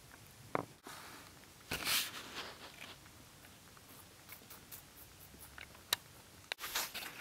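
A rabbit nibbling and crunching food close to the microphone: a cluster of crisp crunches about two seconds in, with scattered soft clicks and nibbles before and after.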